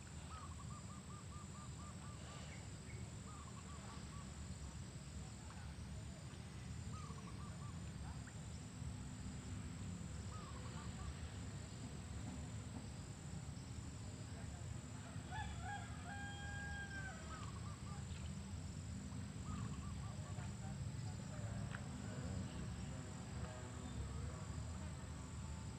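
Birds calling: a short warbling trill repeated every few seconds, and a louder, longer call with several stacked pitches about 15 to 17 seconds in, over a steady low rumble.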